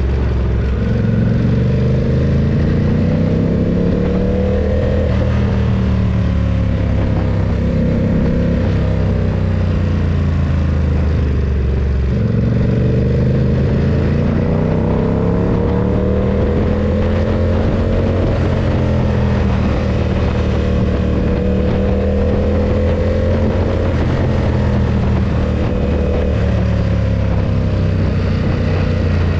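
Ducati SuperSport 939's L-twin engine running under way, its pitch climbing and dropping several times with throttle and gear changes.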